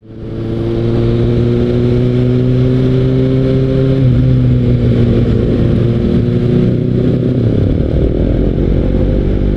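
Motorcycle engine, a Kawasaki ZX-6R inline-four, pulling with its note slowly rising, then a gear change about four seconds in. Near the end the note gives way to a low rumble of road and wind noise.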